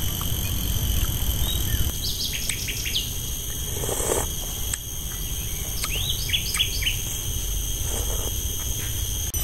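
Steady insect drone of several high even tones, with birds chirping in short runs about two and six seconds in, over a low rumble. Two brief soft sips of porridge from a spoon come about four and eight seconds in.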